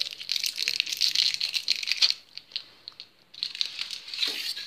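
Clear plastic wrapper of a twisted-end hard candy crinkling as it is twisted open by hand, in two spells: about two seconds of crackling, a short pause, then more crinkling near the end.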